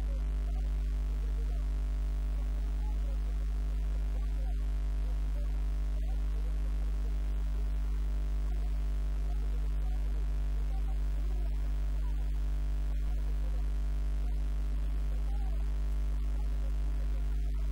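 Steady electrical mains hum: a constant low drone with a stack of overtones, unchanging throughout. Faint wavering sounds lie underneath it.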